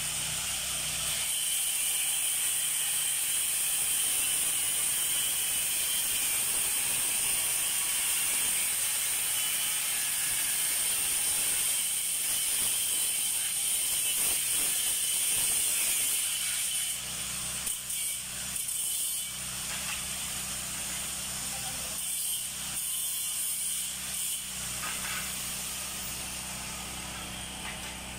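Handheld angle grinder cutting sheets of mosaic tiles, with a steady high whine. A little past halfway the sound turns patchy and drops out briefly a few times.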